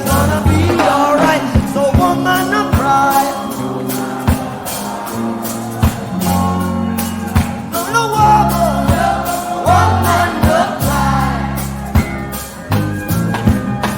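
Music with a singing voice over a bass line and a regular percussive beat.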